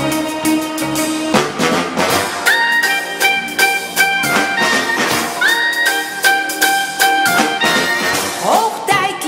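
Brass-led show music playing over a steady drum beat, with long held horn notes that scoop up into pitch twice and a rising slide near the end.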